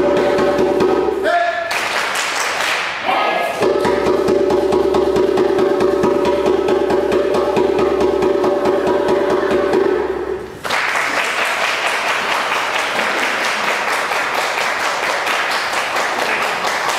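Djembe played in a fast, dense roll under a long held sung note, which breaks off briefly near the start and resumes; from about eleven seconds in, audience applause and clapping.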